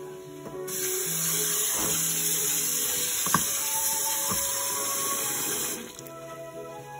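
Tap water running into a stainless steel sink over cooked rice drained in a metal colander, rinsing it; the hiss starts about a second in and stops shortly before the end. Soft background music plays throughout, with one sharp click midway.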